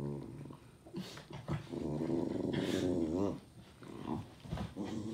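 Jack Russell terrier growling in a string of pitched, wavering grumbles. The longest is about a second and a half in the middle and wobbles up and down in pitch, with shorter growls before and after it.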